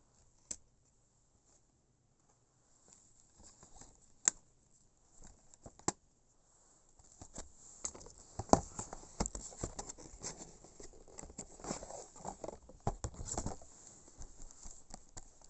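Plastic DVD cases and packaging being handled: a few sharp plastic clicks in the first six seconds, then dense clicking and rustling from about seven seconds in.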